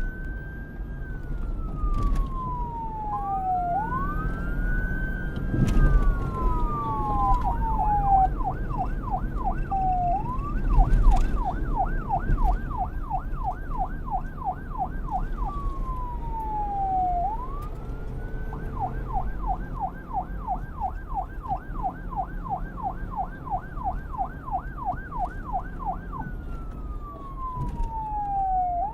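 Electronic police siren alternating between a slow wail, rising and falling over a few seconds, and a fast yelp of about four sweeps a second, over a low rumble. For a few seconds near the start, two wails overlap.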